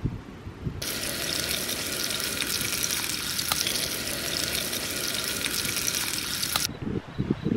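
Seasoned fish fillets frying in oil in a pan: a steady, dense sizzle with a few pops. It starts about a second in and cuts off sharply near the end.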